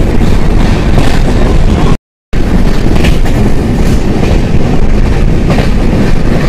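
Loud wind rushing and buffeting over the microphone from a moving vehicle, over the vehicle's running noise. The sound drops out completely for a split second about two seconds in, then carries on.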